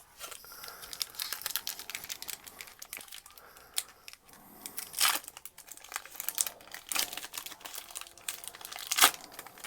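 Foil booster-pack wrappers crinkling as Pokémon card packs are handled and opened, an irregular crackle with louder crinkles about five and nine seconds in.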